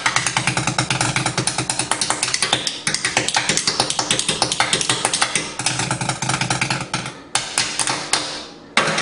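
Chopsticks drumming a fast, steady roll of strikes on kitchen pots, pans and utensils, slowing to a few separate hits near the end and finishing with one louder clatter.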